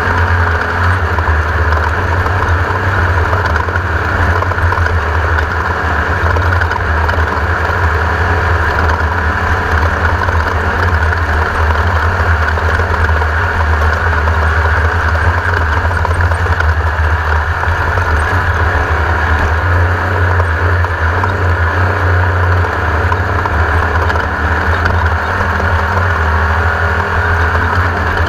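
Class 1600 off-road race buggy's air-cooled Volkswagen 1600 engine running steadily and loudly, a constant low drone with a band of mechanical and driving noise above it.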